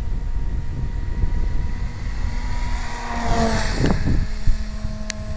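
Small electric radio-control foam canard plane's motor and propeller whining overhead. Its pitch slides down as it passes close about three seconds in. Steady wind rumble on the microphone runs underneath.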